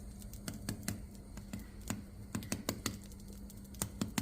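Irregular sharp clicks and taps of a tiny chicken egg's hard shell being tapped and picked at to crack it open, coming in quick clusters.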